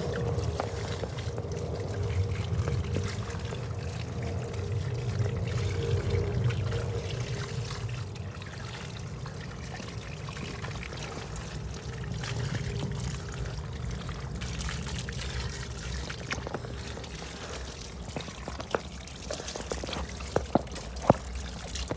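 Water pouring and trickling during a dog's bath, with a few sharp knocks near the end.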